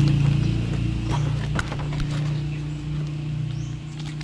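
Cardboard box flap and plastic blister packaging being handled, with a few crisp clicks and rustles, over a steady low hum.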